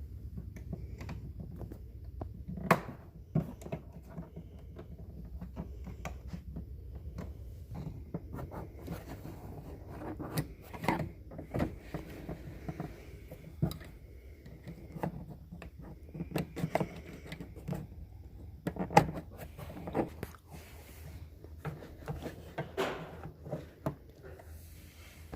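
Screwdriver and hands working on a pickup's plastic interior door trim to take off the armrest: scattered clicks, knocks and scrapes, a few sharper snaps among them, over a low steady hum.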